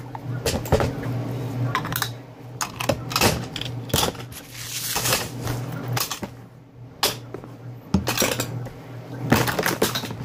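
Irregular clicks, knocks and clatter of small hard toys being handled and knocked together, over a steady low hum.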